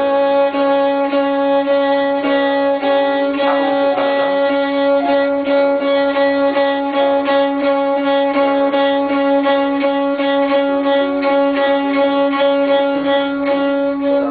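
Violin played with the bow in an even, repeated rhythm, one low note held steady throughout while other notes change above it.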